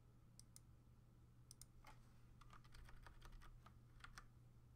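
Faint computer keyboard keystrokes while a file name is typed: a few spaced clicks in the first couple of seconds, then a quicker run of keystrokes in the second half.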